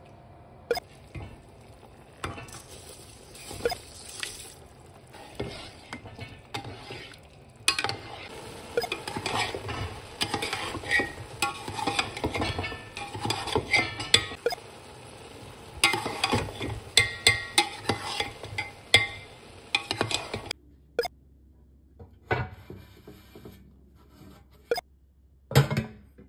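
A slotted metal spoon stirs and turns rice in an aluminium pot, with repeated scrapes and clinks against the pot. The stirring stops after about twenty seconds. A few knocks and one loud thump near the end come as the pot's lid and a weight go on.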